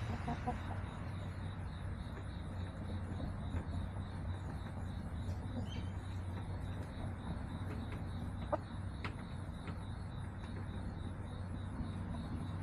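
Backyard hens clucking softly now and then over a steady low hum, with a couple of sharp clicks a little past the middle.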